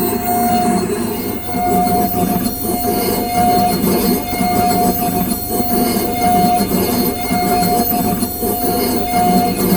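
In-office dental milling machine grinding a crown out of a solid porcelain block: a steady whine that breaks off briefly a few times, over a harsh grinding noise.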